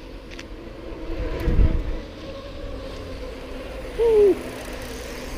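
Mountain-bike ride noise: steady rolling and wind rush, with a low thump between one and two seconds in. Just after four seconds, a short loud squeal falls in pitch.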